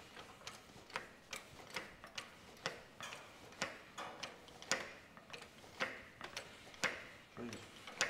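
Ratchet of a wire-tensioning test rig clicking, about two clicks a second, as high-tensile fence wire joined with a crimp sleeve is strained toward its breaking point.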